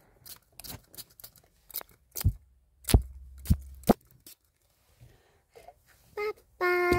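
Handling noise: a run of sharp clicks and knocks, loudest about two to four seconds in, then a short held vocal note near the end.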